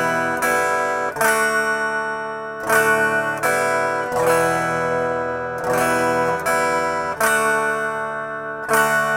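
Acoustic guitar strummed slowly, changing back and forth between E minor and D major chords in a 'down, down, open' pattern, where the third strum catches the open strings while the fretting hand moves to the next shape. Each chord rings on between strums.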